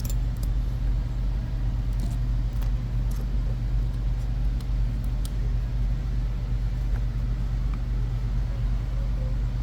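Steady low background rumble, with a few faint light clicks of small metal and plastic gearbox parts being handled during assembly.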